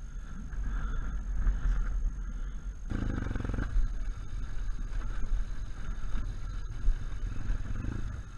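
BMW R1200 GS Adventure's boxer-twin engine running as the bike rides slowly over rough grassy ground, with a heavy rumble of wind on the helmet camera's microphone. About three seconds in, the engine picks up briefly and then holds a steadier note.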